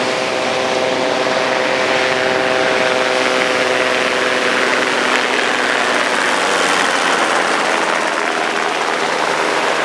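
Small helicopter flying past low, its engine and rotor giving a steady drone whose higher tones fade about halfway through, leaving a lower tone. Surf washes constantly beneath it.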